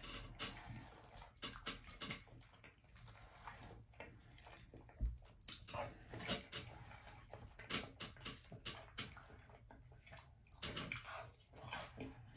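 Faint close-up wet chewing and lip-smacking of a person eating barbecue ribs and mac and cheese: an uneven run of short soft clicks and squelches.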